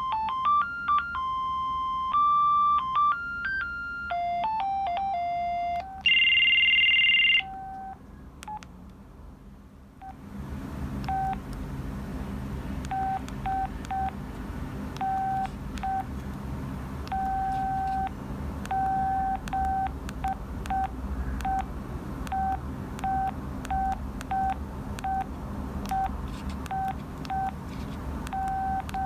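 Audiovox CDM-8200 cellphone playing its built-in monophonic ringtones through its small speaker. First a beeping melody that steps between notes and drops lower, then a loud, high two-tone buzz lasting about a second and a half. From about ten seconds in comes a single-pitch pattern of short and long beeps over more background noise.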